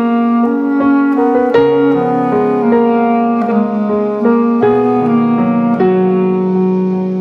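Instrumental passage of a song between sung lines: a piano playing sustained chords that change every second or so.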